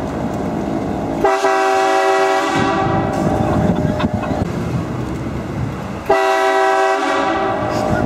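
Truck-mounted train horn sounding two long blasts, each a chord of several steady tones. The first starts a little over a second in and lasts about three seconds; the second starts about six seconds in. Between the blasts the truck's road noise can be heard.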